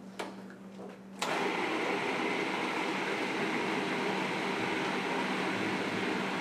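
Food processor grinding boiled soybeans, tomato and onion into a paste: a couple of clicks as the lid is handled, then about a second in the motor starts suddenly and runs steadily.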